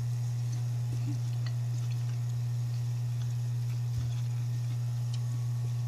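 A steady low hum throughout, under faint eating and handling sounds: a few small clicks, and a soft knock about four seconds in as bananas are handled beside a metal pot.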